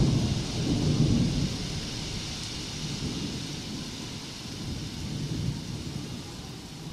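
Rain falling with low rolling thunder, fading slowly out.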